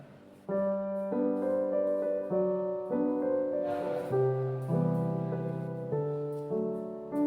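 Background piano music, a slow sequence of sustained notes starting about half a second in.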